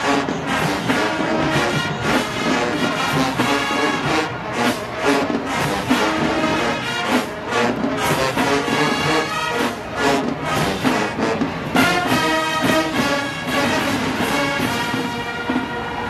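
Marching band playing an up-tempo tune: brass section carrying the melody over a steady drumline beat.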